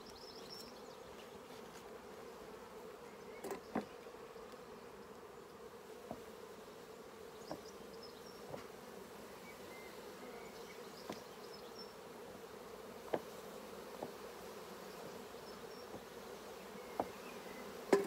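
Steady hum of a honeybee colony buzzing over an opened hive during a frame-by-frame inspection, with a few faint sharp clicks scattered through it.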